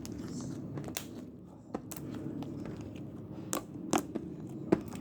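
Slime being squished by hand: a low, soft squelching with sharp clicks and pops at intervals, the loudest in the second half.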